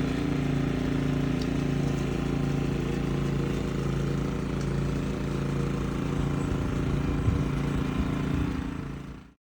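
An engine running steadily at an even, unchanging pitch, fading out near the end.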